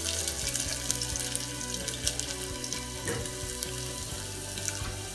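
Chopped garlic sizzling and crackling in hot ghee with cumin seeds in a deep kadhai: a steady frying hiss with scattered small pops.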